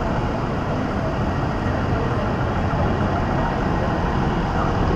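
City street traffic noise: a steady rumble of cars and taxis passing on a busy avenue.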